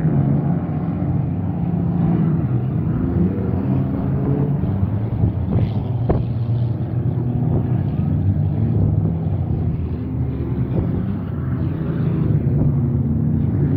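Engines of several pickup trucks and SUVs racing around a dirt course, running hard with a steady, overlapping drone whose pitch rises and falls as the drivers accelerate and back off.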